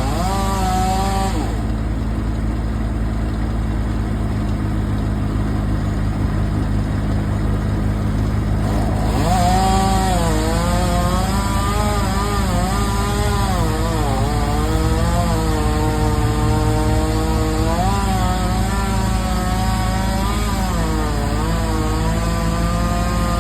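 Chainsaw running and cutting wood, its engine pitch rising and sagging as it works. It eases off about a second and a half in and comes back up to speed about nine seconds in, over a steady low engine drone.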